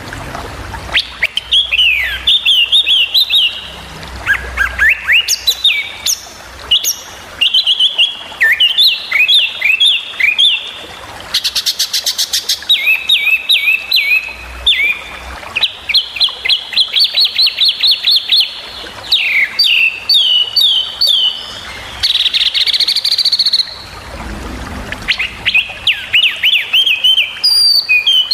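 Small songbird song: quick bursts of sharp, repeated chirps and down-slurred whistles, broken by short pauses, with a fast buzzy trill about twelve seconds in.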